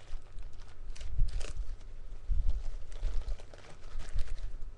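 Plastic packaging bags crinkling and crackling as they are handled and pulled at, with uneven dull knocks from the handling.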